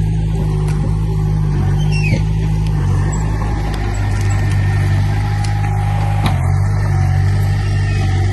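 Heavy-equipment diesel engine running steadily with a low drone, with a short knock about two seconds in and another past six seconds.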